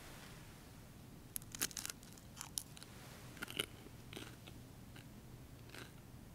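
Faint dry crunches and crackles of a communion wafer being chewed, in small clusters, the loudest about one and a half to two seconds in and again about three and a half seconds in.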